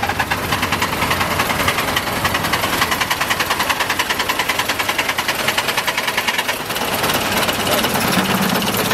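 Scania 112 truck's six-cylinder diesel being cranked on its starter, turning over in a fast, even rhythm without starting: fuel is not reaching the engine.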